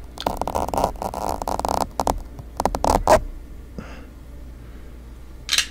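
Hand sounds: fingers rubbing and plucking, a dense scratchy crackle for about two seconds, then a few sharp clicks between two and three seconds in, and a short rustle near the end.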